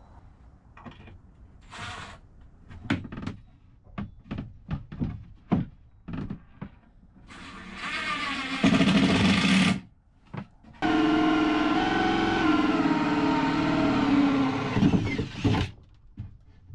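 A run of knocks and clicks from handling parts, then an electric power tool's motor spinning up briefly, stopping, and running steadily for about five seconds, as when driving screws or bolts.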